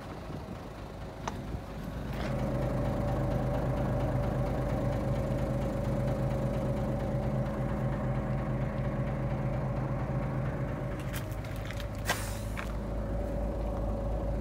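Mitsubishi 6D22 inline-six diesel of a bus idling steadily, growing louder about two seconds in. Near the end comes a brief hiss.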